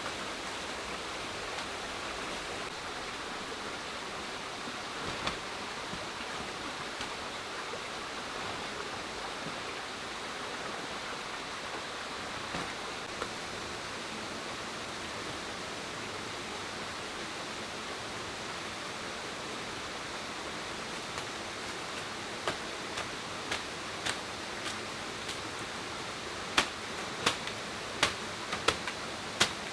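Steady rushing of running water. Over the last several seconds come sharp knocks, about one to one and a half a second, growing louder.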